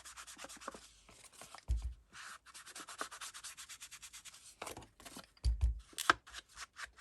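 Rapid rubbing strokes on paper, many short scratchy passes in quick succession, with a pause about a second in. Two soft low thumps come about two seconds in and again past the five-second mark.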